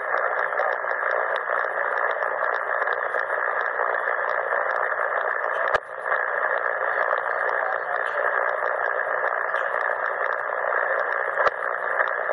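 CommRadio CR-1a receiver's speaker giving a steady hiss of band static on 7.272 MHz with no station transmitting. A single click comes about six seconds in.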